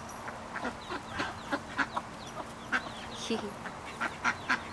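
Mixed poultry calls: ducks quacking softly and baby chicks peeping, many short calls a second, with one lower falling call a little over three seconds in.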